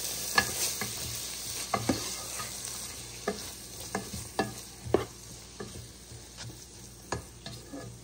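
Chopped onion, garlic, carrots and tomato frying in butter in a pan, sizzling, while a utensil stirs them and knocks against the pan in irregular sharp clicks. The sizzle dies down over the few seconds.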